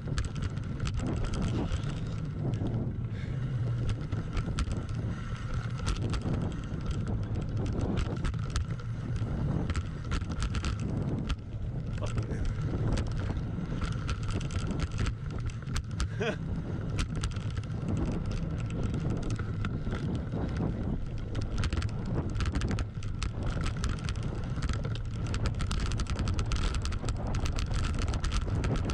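Voodoo Bizango hardtail mountain bike riding down a loose gravel trail: a steady rumble of tyres over dirt and stones, with many sharp clicks and rattles from the bike and wind buffeting the microphone.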